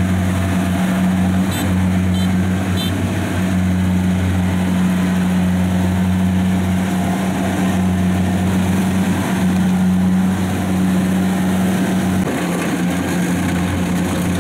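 Kubota combine harvester's diesel engine running steadily with a low, even hum.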